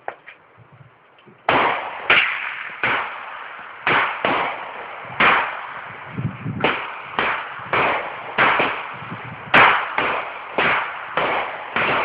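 Gunfire: a run of about fifteen gunshots, one after another roughly every half second to a second, starting about a second and a half in.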